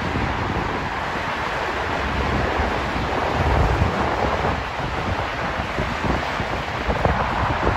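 Wind buffeting the microphone in gusts over a steady rushing noise, with the strongest gust about three and a half seconds in.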